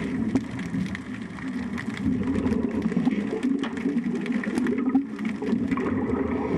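Boat engine running steadily at idle, a low even hum.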